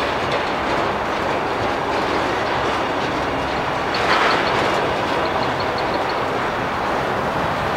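Empty autorack freight cars rolling slowly past: a steady rumble and clatter of steel wheels on the rails.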